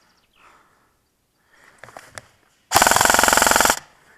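Airsoft electric rifle, a G&P M4A1 AEG, firing one full-auto burst lasting about a second: a rapid, even rattle of shots from the gearbox cycling.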